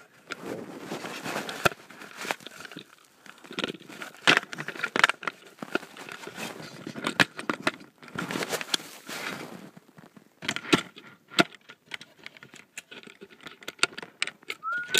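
A Lionel toy train running on its track, with a phone riding on it. It makes dense, irregular clicking and rattling over a faint steady whine.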